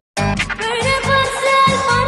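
Background music: after a brief silent gap, a new track starts abruptly, with a held, wavering melody line over a steady drum beat.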